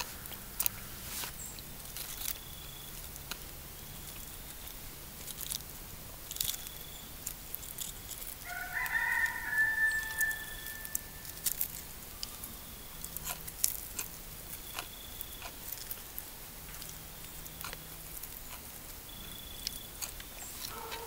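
A rooster crows once, about nine seconds in: a call of about three seconds ending on a long held high note. Around it, scattered light clicks and taps of someone eating with a fork from a plate.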